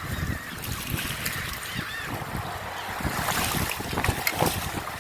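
Wind buffeting the microphone over a steady wash of surf, with a few short bird calls about two seconds in.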